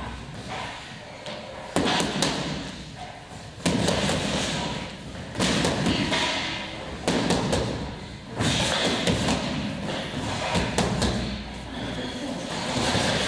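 Boxing gloves striking focus mitts: bursts of sharp hits every second or two.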